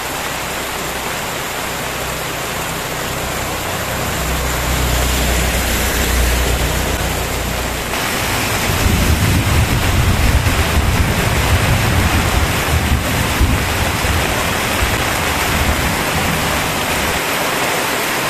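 Heavy rain pouring onto a flooded road, a loud steady hiss. A low rumble swells underneath from about four seconds in and comes and goes until near the end.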